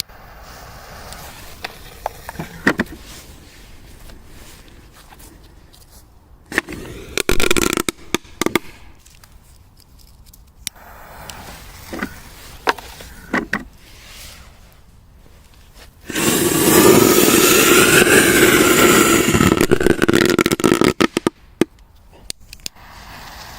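Pyrotechnics going off: scattered sharp pops and a cluster of cracks, then a loud hissing spray lasting about five seconds that breaks up into crackling pops near its end.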